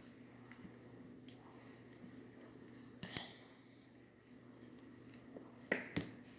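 Small metallic clicks and taps of tweezers and tiny lock parts (pins and springs) against a disassembled lock cylinder: one sharp click about three seconds in and two quick clicks near the end.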